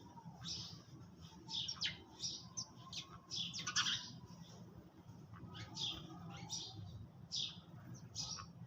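Sparrows chirping, many short, irregular chirps a few per second, over a low steady hum.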